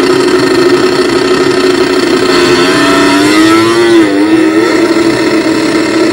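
MotoGP racing motorcycle engines running loud at steady, raised revs through open exhausts on bikes held stationary. About four seconds in the revs dip briefly and rise again.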